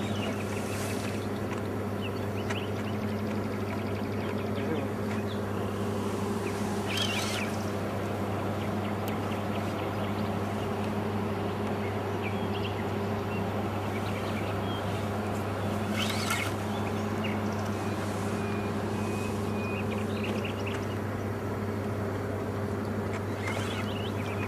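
A boat's motor running at a steady, even hum, with short bird chirps now and then.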